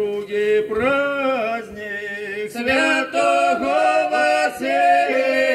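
Unaccompanied group singing of a Russian folk Christmas carol: a male voice leads over a held low note, and the voices grow fuller about two and a half seconds in.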